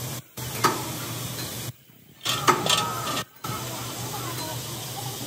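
Steady sizzling hiss of hot metalwork on steel, over a low electrical hum, typical of arc welding or torch cutting in a fabrication shop. It breaks off abruptly three times for a moment, and there are two sharp clicks, about half a second in and about two and a half seconds in.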